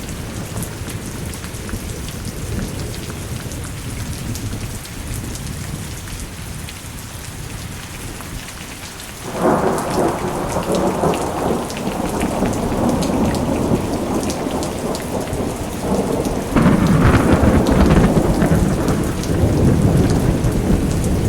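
Thunderstorm: steady rain with thunder, two long rolls of thunder, the first breaking in about nine seconds in and the second about sixteen seconds in.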